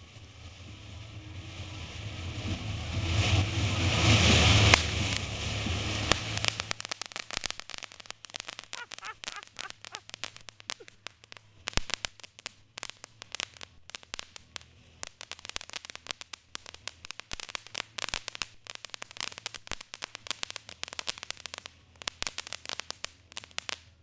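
Ground fountain firework spraying sparks. It starts as a hiss that swells to its loudest about four or five seconds in, then turns into a long run of rapid, sharp crackling pops that stops near the end.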